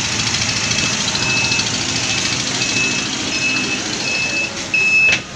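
Repeated high electronic warning beeps, each about half a second to a second long with short gaps, over the steady noise of a bus engine running, and a loud knock near the end.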